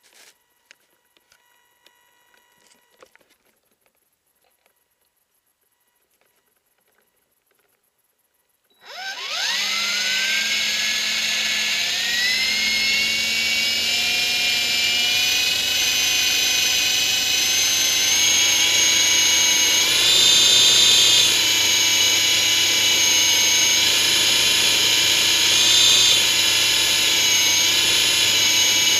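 Big Lama coaxial electric RC helicopter, heard up close from a camera taped to it: a few faint handling clicks, then near silence until about nine seconds in, when its motors spin up with a rising whine and run on steadily with the rotors, the whine wavering up and down a couple of times with the throttle.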